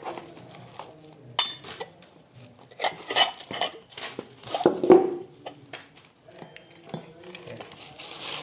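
Metal hand tools and parts clinking and knocking together: several sharp, irregular metallic knocks, each with a short ring.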